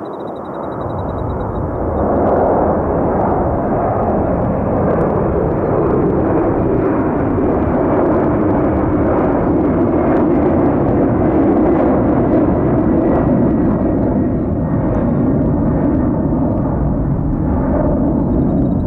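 Jet airliner's engines running loud as it passes close: a rumble that swells about two seconds in and holds, with a faint high whine slowly falling in pitch.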